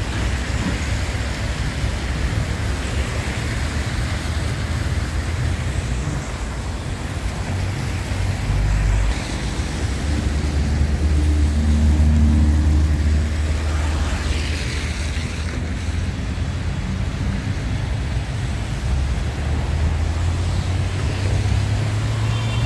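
Steady road traffic on a wet avenue. A car passes close by around the middle and is loudest then. Under it runs an even rushing noise from the storm-swollen creek below.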